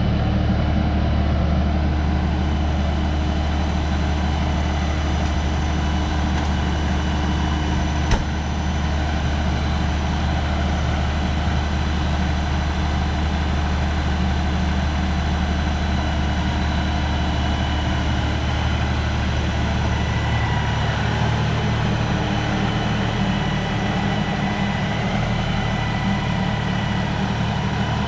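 A motor vehicle's engine running steadily with a constant low hum, and a single sharp click about eight seconds in.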